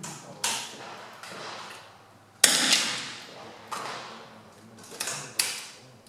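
Smallbore .22 LR match rifles firing on the range: about five sharp cracks in six seconds, each with an echoing tail, the loudest about two and a half seconds in.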